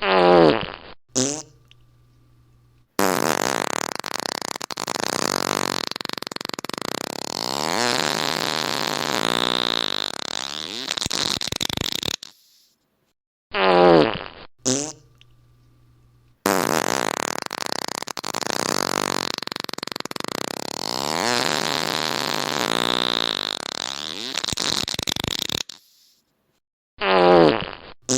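Prank fart sound effects: two short farts, then one long, drawn-out fart of about nine seconds whose pitch wavers up and down. The same sequence plays again, and a short fart comes near the end.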